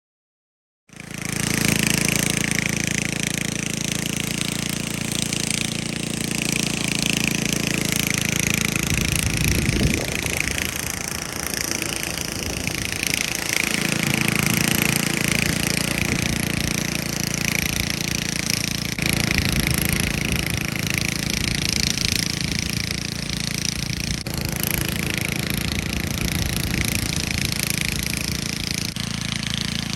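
Chainsaw running, cutting in suddenly about a second in and running steadily, with a change in its pitch around ten to fourteen seconds in.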